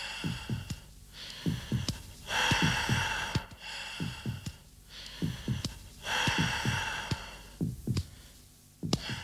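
Chest percussion on a healthy chest: fingers tapping a person's chest in quick groups of two or three short, loud thuds, meant as the resonant note of healthy, air-filled lungs. Deep breaths in and out sound three times between the taps.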